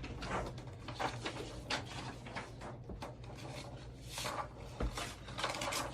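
Irregular light rustles and soft knocks from things being handled, over a steady low electrical hum.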